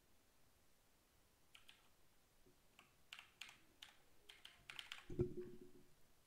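Faint keystrokes on a computer keyboard typing a phone number: a quick run of separate taps, followed a little after the middle by a louder, duller thump.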